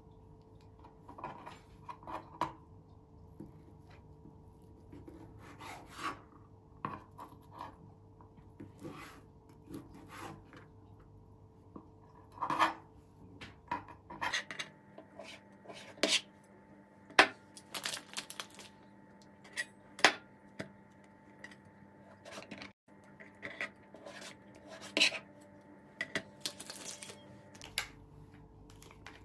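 Kitchen knife cutting thin salami slices in half on a plastic cutting board: irregular clicks and taps of the blade against the board, with light rubbing and handling sounds.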